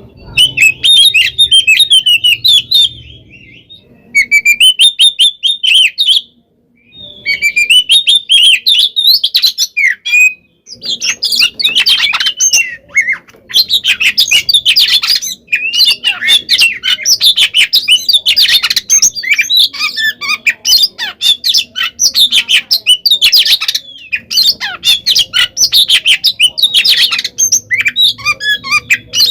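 Oriental magpie-robin (kacer) singing loudly in a fast, unbroken stream of harsh chattering and whistled notes. The song has short breaks in the first ten seconds, then runs on without pause. This is the aggressive, fighting-style song that kacer keepers play to provoke other males into answering.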